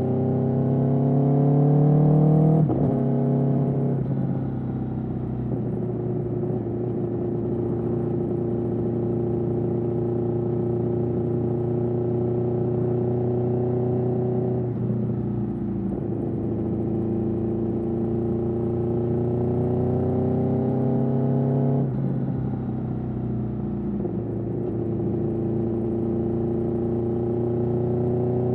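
Aprilia Tuono V4 motorcycle's V4 engine through an Austin Racing GP1R exhaust, pulling under throttle: the pitch climbs and then drops sharply about three seconds in, again about halfway through and again about three quarters of the way through, as at gear changes, with long spells of steady running in between.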